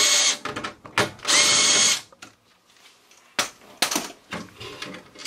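Power drill-driver backing out the two screws that hold an old furnace ignition control board, in two short runs: a brief one at the start and a second, about a second long, about a second in. A few light clicks and knocks follow.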